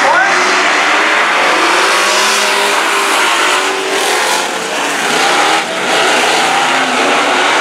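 A pack of dirt-track race trucks racing, with several engines revving at once and their pitches rising and falling as the trucks drive through the turns and down the straights.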